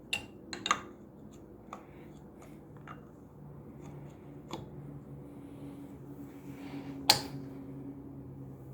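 Light clicks and taps from handling a mountain-bike air rear shock as its air can is slid back onto the body, with one sharper click about seven seconds in.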